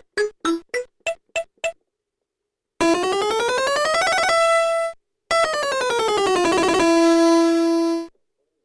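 Electronic tones from a 2001 Fisher-Price Sesame Street Magical Moves toy keyboard. A quick series of short notes stops a bit under two seconds in. After a pause comes a fast rising glissando that holds on a high note, then a falling glissando that holds on a low note.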